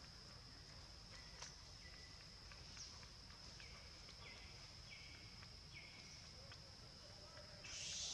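Faint forest ambience: a steady high-pitched insect drone, with a run of short, falling calls, about six of them, between one and six seconds in. A louder, hissy sound comes in near the end.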